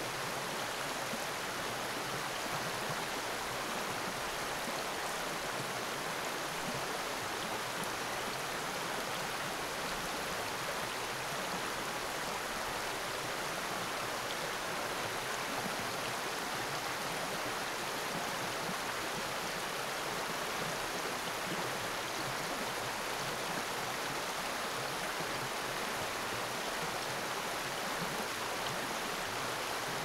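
A small creek's water running in an even, unbroken rush.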